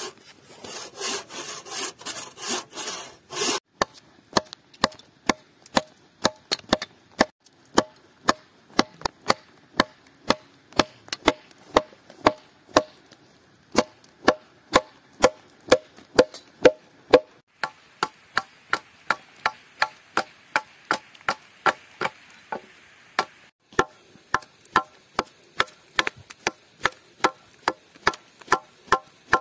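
A bow saw rasping through a green log in quick back-and-forth strokes for about three and a half seconds, then a wooden mallet knocking down on the log, sharp wooden knocks at roughly two a second.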